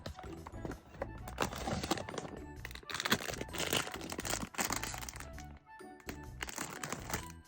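Blind-box packaging crinkling and crackling in several bursts as it is handled and opened, over background music.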